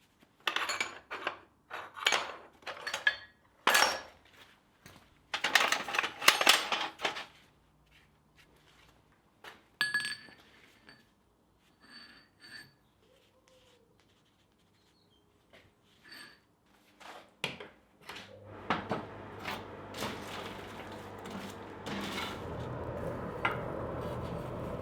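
Steel tools and bar stock being handled in a smithy: irregular metallic clinks, rattles and clanks, a few with a short ring. About three-quarters of the way through, a steady rushing noise with a low hum sets in.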